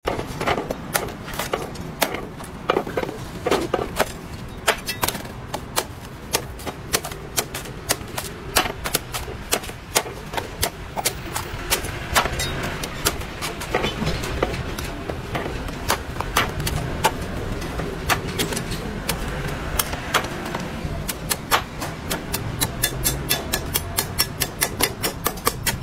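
Steel cleaver chopping and shaving the husk off a green coconut on a wooden chopping block: a long run of sharp chops, coming faster, about three or four a second, near the end.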